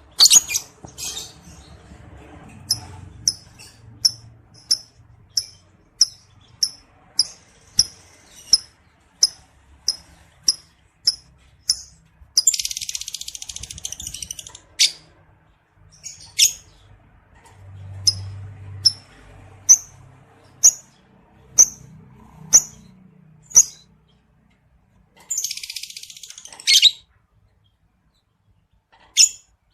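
Lovebird calling: a run of short, sharp, high chirps at about one and a half per second, broken twice by a burst of harsh, rapid chatter lasting a second or two.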